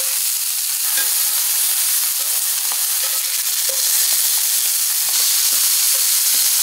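Sea scallops searing in oil in a screaming-hot cast iron skillet as they are turned over one by one: a steady, loud sizzle with scattered small ticks and pops.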